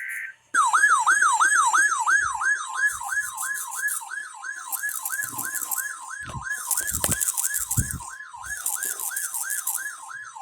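Emergency alert tones: a brief burst of digital data buzz, then from about half a second in a steady tone near 1050 Hz, the NOAA warning alarm tone, overlaid with a rapid repeating siren-like sweep of about three swoops a second.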